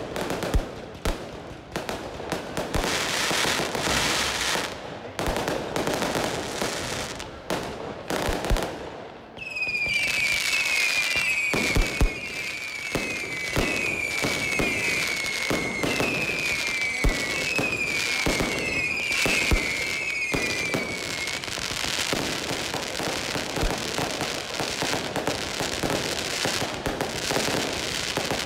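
Fireworks going off: a steady run of bangs and crackling. From about a third of the way in until about three quarters through, a quick series of shrill falling whistles sounds over the bangs.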